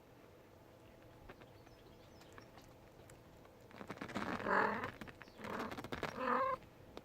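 A young kitten meowing: two loud cries, the first about four seconds in and the second, a little shorter, about a second later.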